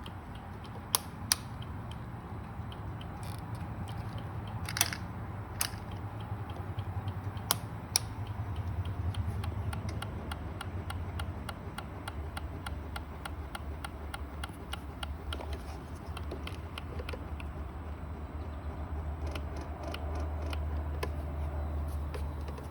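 A 2016 Kawasaki Ninja 300's starter relay chattering in rapid, even clicks as the starter is pressed, the classic sign of a dead or dying battery that cannot turn the engine over. A few louder clicks stand out in the first several seconds, over a steady low hum.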